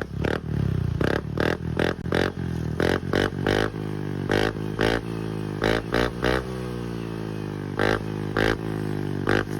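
Honda PCX160 scooter's single-cylinder engine through an aftermarket Apido V4 big-tip exhaust, idling and blipped again and again with quick throttle stabs. Each stab is a short rev that rises and falls back to idle. The exhaust note is very crisp.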